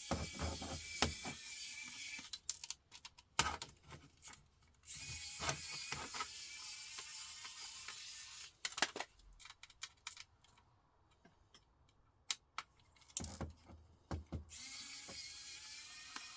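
Screwdriver working small screws out of a laptop casing: three stretches of steady ratcheting, with sharp clicks and knocks of small parts and screws between them.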